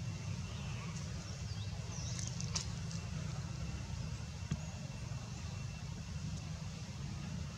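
Steady low outdoor rumble with a few faint high chirps, a sharp click about two and a half seconds in and a soft knock about two seconds later.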